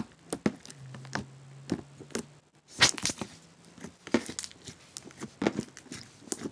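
Slime being poked and squeezed by fingers, making irregular sticky clicks and pops, with a louder pop about three seconds in.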